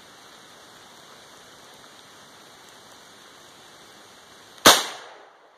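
A single shot from an M1A rifle firing a plastic training round, sharp and loud about three-quarters of the way in, with a short ringing tail. Before it there is a steady hiss.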